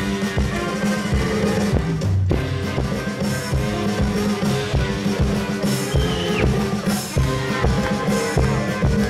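Live band music: a brass band with sousaphone, drum kit and double bass playing an up-tempo dance tune with a steady beat. It breaks off for a moment about two seconds in, and a high note slides downward later on.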